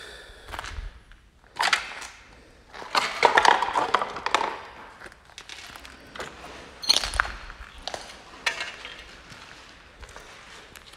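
Footsteps crunching and cracking over debris on a littered floor, densest about three to four and a half seconds in, with a few sharp cracks later.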